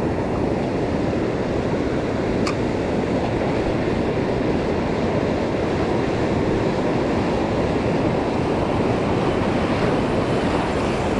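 Strong wind buffeting the microphone over surf washing on the beach, a steady rushing noise. A single sharp click sounds about two and a half seconds in.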